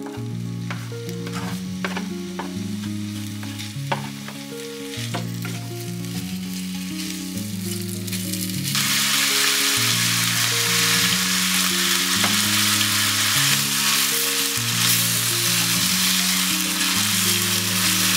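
Sliced beef sizzling in a hot oiled nonstick pan, with scattered sharp pops and clicks. About nine seconds in, sauce goes into the pan and the sizzle suddenly turns much louder and hissier, staying that way as the meat is stirred through it. Soft background guitar music plays throughout.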